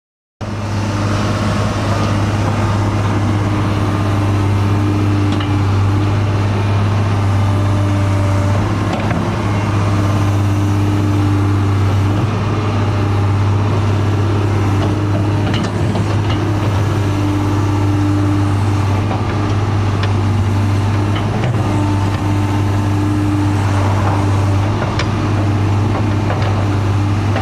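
Caterpillar excavator working, its diesel engine running steadily under load. A higher hum swells and fades every few seconds, with a few scattered clanks.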